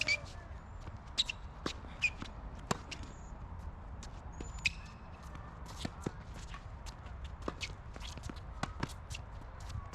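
Tennis play: sharp racket strikes and ball bounces, the loudest a second or two apart, with sneakers scuffing and briefly squeaking on the court.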